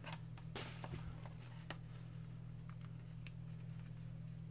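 A few faint clicks and light rustling, mostly in the first two seconds, as a USB charging cable is handled and plugged into a smartphone, over a steady low hum.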